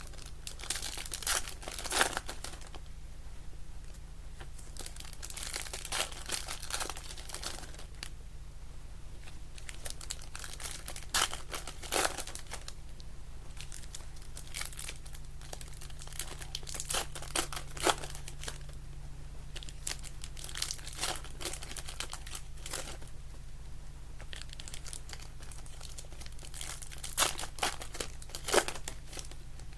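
Trading-card pack wrappers crinkling and tearing in short bouts every few seconds as packs of 2025 Panini Select Baseball are opened, over a steady low hum.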